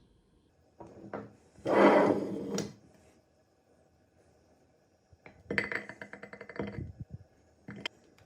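Hard objects being handled: a couple of knocks, a loud scraping rustle lasting about a second, then a quick run of rattling clicks and a last click near the end.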